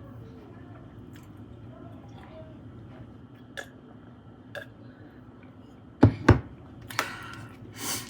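Someone eating crispy fried chicken: faint chewing and small ticks, two sharp knocks about six seconds in, then crackly crunching bursts near the end.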